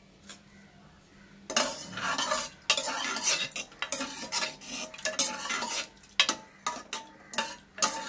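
A wooden ladle stirring cooked toor dal in an open pressure cooker, scraping and knocking against the pot. It is quiet for the first second and a half, then the stirring clatter goes on without a break.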